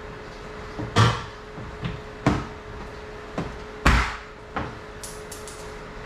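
Knocks and clunks from handling a tail light assembly and the trunk trim as it is refitted from inside a car's trunk, three loud ones about a second and a half apart with lighter taps between, then a brief light rattle near the end. A faint steady hum runs underneath.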